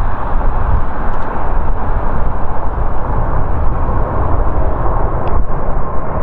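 Boeing 747-8 freighter's four GEnx-2B67 turbofan engines at takeoff power during the climb-out: a loud, unsteady rumble with a deep low end. A faint steady whine comes in over the last second or two.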